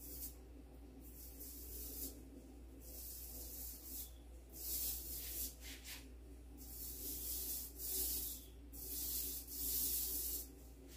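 Paint roller being rolled back and forth over a wall, a repeated rubbing stroke about every one to two seconds.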